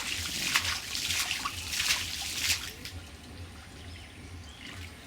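Shallow pond water splashing and trickling as it is stirred by hand, a run of quick splashes that die down about halfway through.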